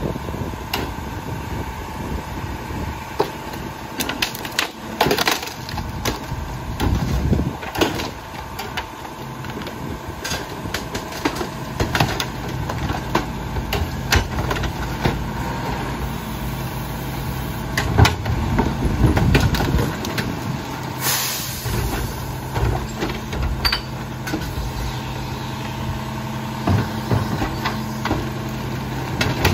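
Rear-loader garbage truck engine idling while carts and debris bang and clatter into the hopper in many sharp knocks. About nine seconds in, the engine note steps up and holds steady. A short burst of air hisses about 21 seconds in.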